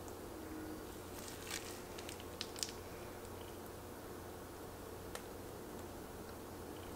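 Frosting being squeezed out of a plastic zip-top piping bag: soft squishing with a few short crinkles and clicks of the plastic, clustered between about one and three seconds in and once more a little after five seconds, over a faint steady hum.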